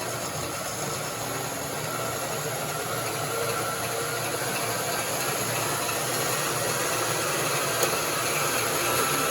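Bauer 10-amp variable-speed portable bandsaw on speed 2, its 24 TPI blade cutting through 16-gauge mild steel plate under the tool's own weight. A steady running and cutting noise that slowly grows louder; the motor speed shifts on its own under load although the setting is left unchanged.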